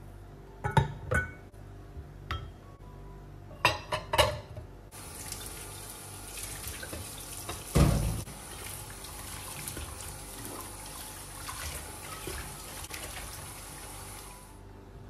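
Ceramic bowls clinking and knocking against each other in a stainless-steel sink as they are washed, a few sharp knocks in the first four seconds. Then a kitchen tap runs steadily onto the bowls for about ten seconds, starting about five seconds in, with one heavier knock of a bowl partway through.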